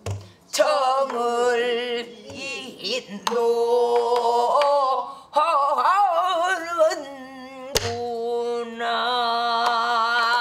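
A woman singing pansori with a full, strained voice and wide vibrato on long held notes, accompanying herself on a buk barrel drum. A few sharp stick strokes on the drum fall in, near the start, a little past three seconds and just before eight seconds.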